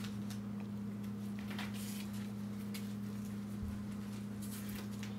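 Faint rustling as a cabretta leather long-cuff batting glove is handled and its cuff folded over, a few soft touches over a steady low hum.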